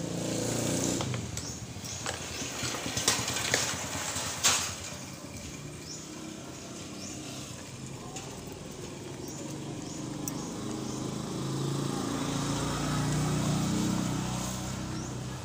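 Small motorcycle engine running at the start and again near the end, with a few sharp clicks about three to four and a half seconds in.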